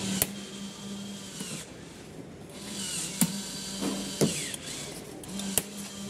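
The small electric motor of a kids' battery-operated ride-on Jeep's automatic door hums steadily in three short stretches as the door is driven open. Sharp clicks and knocks fall between the stretches.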